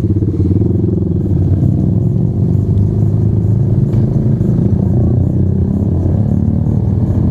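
A motor vehicle engine running close by, a steady low drone.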